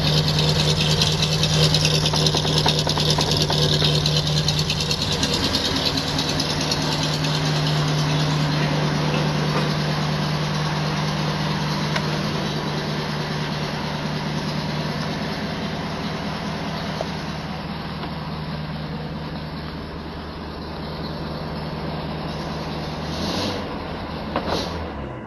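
1934 Packard Eight's straight-eight engine idling with a steady, grumbly exhaust note, slowly getting quieter, with a couple of knocks near the end.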